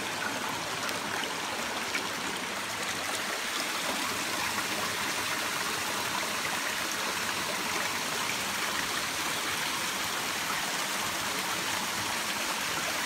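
Small rocky stream rushing steadily, its water splashing down low cascades.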